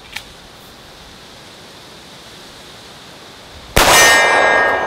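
A single pistol shot from a Sig P220 in .45 ACP a little under four seconds in, followed by a long ringing, echoing decay. It is the last round in the magazine.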